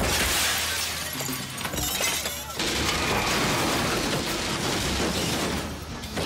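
Action-film sound effects of crashing and breaking glass as chairs and people go down, then a car smashing into scaffolding poles, with film music underneath.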